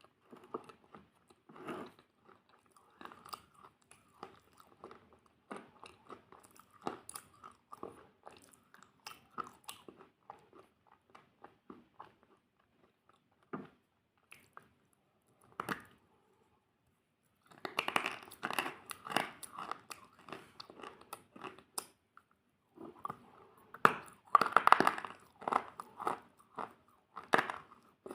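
Close-miked chewing of crunchy food: quick, soft crackly chews for the first half, a near pause, then louder, dense crunching bites near the end.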